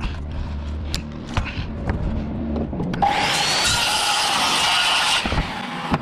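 A few light knocks and clicks of handling wood, then a saw cutting through a wooden board for about two seconds, stopping abruptly.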